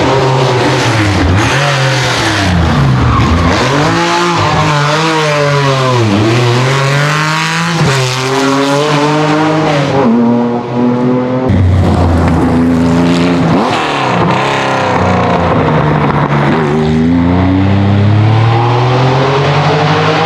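Air-cooled flat-six engines of classic Porsche 911 rally cars running hard, revs climbing and falling again and again through gear changes as the cars pass.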